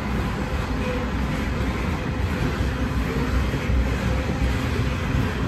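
Heritage railcar pulling away from the station platform: a steady, even rumble with faint running tones that holds level throughout.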